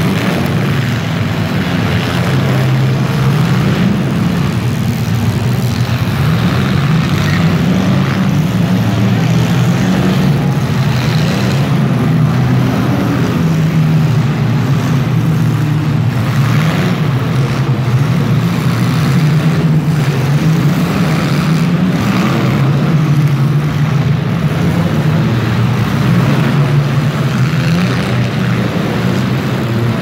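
Engines of several compact demolition derby cars running and revving together, a loud steady drone.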